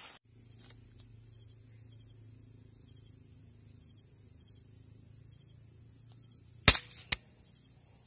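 A single air rifle shot, a sharp crack near the end, followed about half a second later by a second, softer sharp click.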